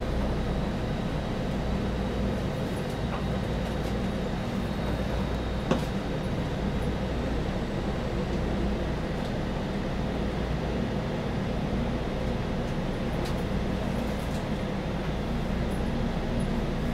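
Steady rumble and hum of a Taiwan High Speed Rail 700T train running slowly into a station, heard from inside the carriage, with one short click about six seconds in.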